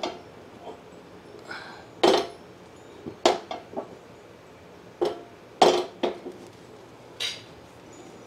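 Several sharp metallic clanks and clinks, about eight spread out with the loudest about two seconds and five and a half seconds in, as a cast iron pan is handled on a gas burner.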